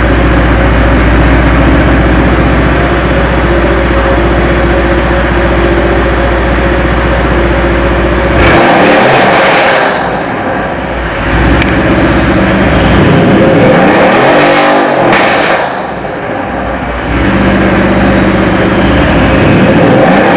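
Car engine running loudly and being revved, its pitch rising and falling, with surges about 8.5 s in, around 14–15 s, and near the end.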